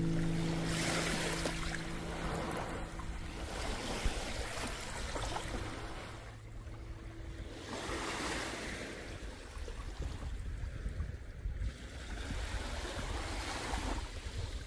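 Small sea waves washing onto a sandy beach, swelling and easing every few seconds, with wind rumbling low on the microphone.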